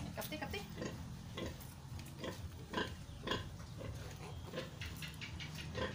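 Newborn piglets squealing and grunting in short, repeated calls while being handled and wiped just after birth.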